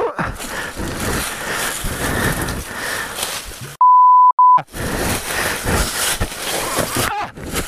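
A censor bleep, a steady 1 kHz tone lasting under a second and broken once just before its end, with the original sound muted around it. Before and after it, continuous rustling and scuffing noise.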